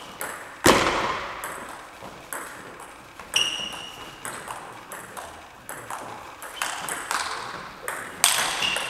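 Table tennis rally: the celluloid ball clicks back and forth between bats and table about twice a second, echoing in the hall. The loudest is a hard strike with a low thud just under a second in.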